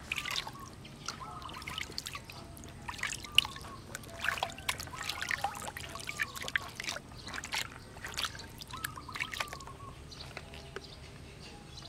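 Water splashing and trickling in short, irregular bursts, as during a bath.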